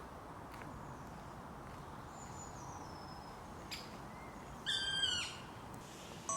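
Black woodpecker giving one drawn-out, plaintive call, a little over four and a half seconds in, with a drop in pitch at its end. A faint high bird whistle sounds a couple of seconds earlier.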